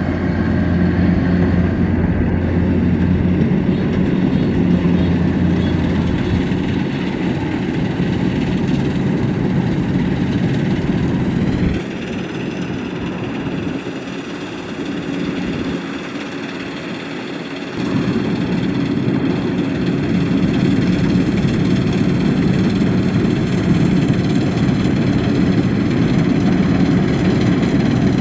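Kubota DC-93 combine harvester's four-cylinder turbocharged diesel engine running steadily. The low rumble weakens for several seconds in the middle, then returns.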